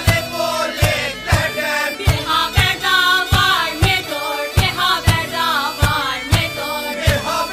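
Background music: a steady drum beat, about two beats a second, under choir-like voices singing.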